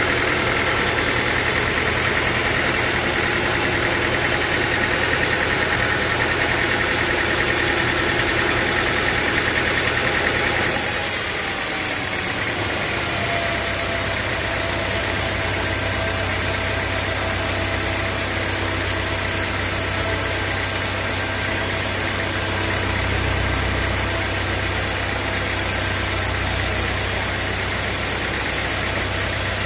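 A sawmill's engine running steadily. Its sound changes about eleven seconds in, then holds steady again.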